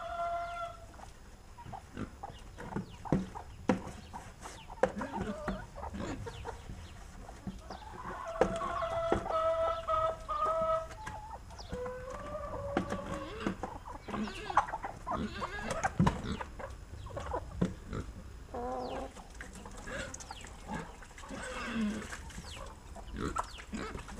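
A flock of domestic chickens clucking and squawking as they crowd in to be fed, with a longer drawn-out call about a third of the way in. Scattered sharp knocks and clicks run through it.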